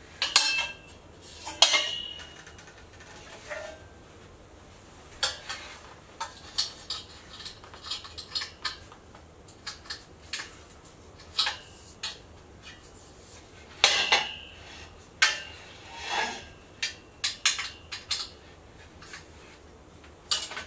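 Metal tubes of a desk frame knocking and clinking together as they are handled and fitted, some strikes ringing briefly. Scattered knocks throughout, the loudest about half a second, a second and a half, and fourteen seconds in.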